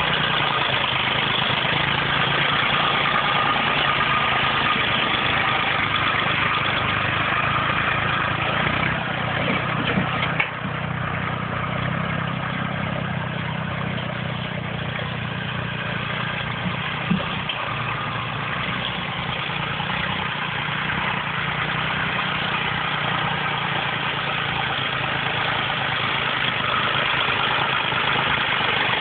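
Tractor engine running steadily under load, with two short knocks, one about ten seconds in and one about seventeen seconds in.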